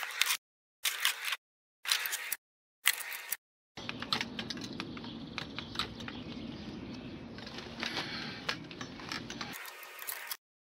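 Clicking and clattering of a bicycle frame and metal parts being handled and lifted out of a small car's boot. For the first few seconds and again near the end, the sound cuts in and out about once a second in half-second bursts. In between it runs continuously, with a low hum under the clicks.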